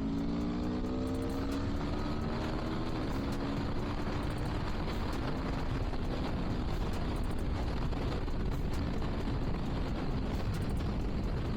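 Aprilia Tuono V4's 1077cc V4 engine accelerating, its pitch rising over the first three seconds, then running steadily under a haze of wind and road noise.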